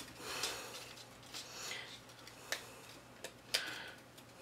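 Cardstock pieces handled and pressed together by hand: soft paper rustling with a few light taps and clicks, the two sharpest about two and a half and three and a half seconds in.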